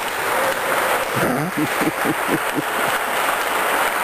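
Steady background noise of a large indoor hall, with a distant voice talking briefly from about a second in.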